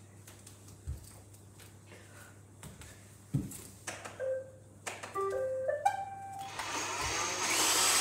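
Robot vacuums being started one after another: button clicks and light knocks, then short start-up beeps and stepped chime melodies from about four seconds in. Near the end their suction motors and brushes spin up into a steady whirring hiss that keeps getting louder.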